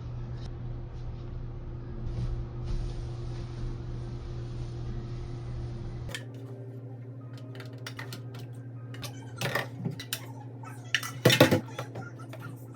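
Kitchen dishes and utensils clinking and clattering, loudest in a cluster of knocks near the end, over a steady low hum.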